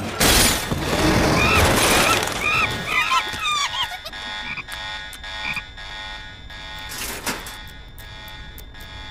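Cartoon sound effects of a chaotic break-out: a crash, then noisy commotion full of short, high squeaky animal calls. After about four seconds this gives way to a quieter held musical chord with faint ticking.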